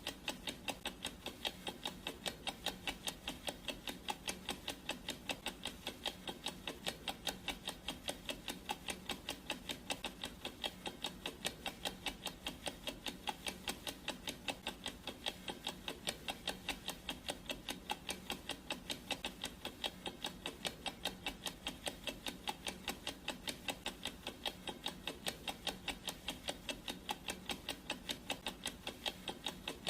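Clock ticking sound effect: a steady, even tick-tock of sharp ticks, a few each second, without a break.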